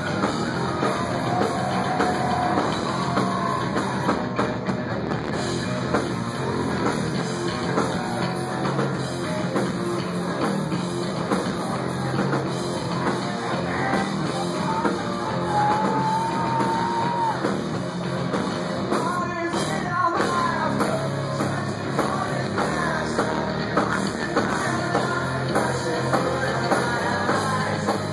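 Live rock band playing through a club PA, heard from the crowd: drum kit, electric bass and guitar, with singing.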